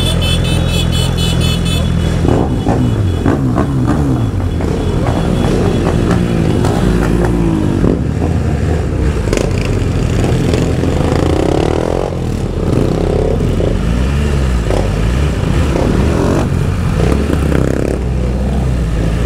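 BMW S1000RR inline-four engine running under way with the exhaust end can removed. The revs rise and fall repeatedly as the rider accelerates and shifts.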